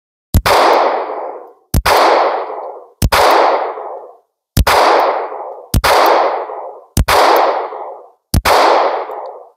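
Seven 9mm pistol shots from an SCCY CPX-2, fired at a steady pace of about one every 1.3 seconds, each followed by a long fading echo. The pistol cycles every round with no stoppage.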